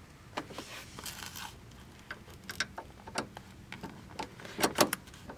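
Bolts being threaded into a massage chair's metal frame and turned with a hand tool: irregular light clicks and taps, with a small cluster near the end.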